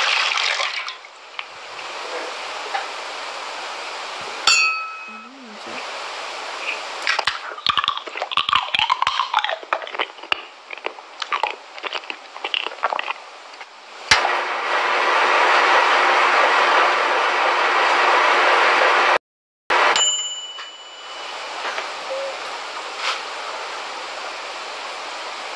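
Handling and filling of a miniature wire-framed toy cement mixer. Powder is poured in with a short hiss at the start. Then come a ringing metallic ding, a run of light clicks and clinks, a long steady pouring hiss in the middle, and another ding.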